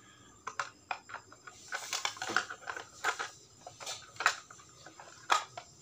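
Irregular clicks and knocks of a black plastic device casing being handled and fiddled with by hand.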